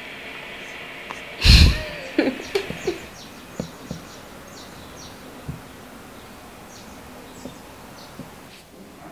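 Birds chirping outside, a scatter of short high calls. About one and a half seconds in, a brief loud rush of noise, the loudest sound, followed by a few short knocks.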